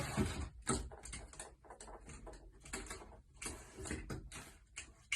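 Irregular rustling and scuffling noises in quick short bursts, with brief gaps between them.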